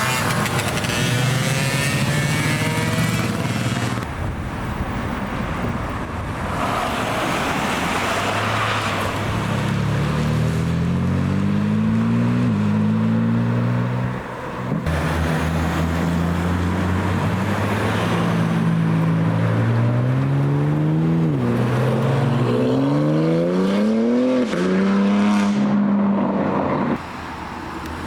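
Several cars' engines accelerating hard in turn. Each engine note climbs in pitch and drops back at the gear changes, with abrupt cuts from one car to the next.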